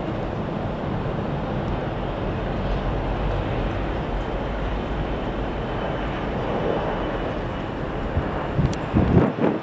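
Strong gusty wind rumbling on the microphone, with a jet airliner's engines faintly under it; harder gusts buffet the microphone near the end.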